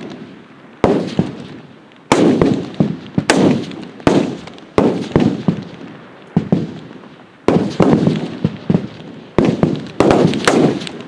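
Rifle shots from several F-Class rifles on the firing line, about a dozen sharp cracks at irregular intervals. Each crack is followed by a rolling echo that dies away over roughly a second.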